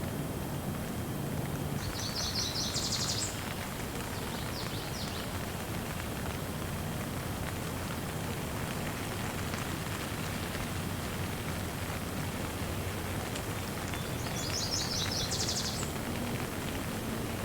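Steady gentle rain with a songbird singing a short, rapid, high trill of repeated notes twice, about two seconds in and again near the end, and a fainter brief phrase between.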